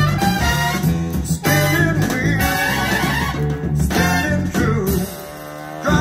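A song with singing, guitar and bass playing over the speakers of a vintage 1970 Pioneer SX-440 stereo receiver. The music drops to a quieter held passage about five seconds in, then picks up again near the end.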